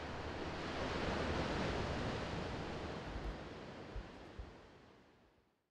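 Shallow sea water washing up over sand with a steady hiss of surf, swelling slightly about a second in, then fading out near the end.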